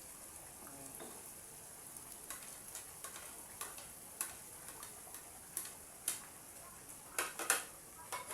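A spoon clicking and knocking against the pot at irregular moments, about ten times, over the faint steady sizzle of the tomato sauce cooking.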